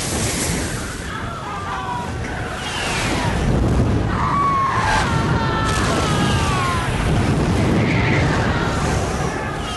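Film sound effects of fireballs crashing down and bursting into flame: a continuous rumble of booms and explosions, with falling, voice-like cries mixed in.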